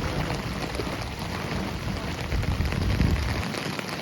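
Steady hiss of heavy rain and water, with uneven low rumbling underneath that swells about three seconds in.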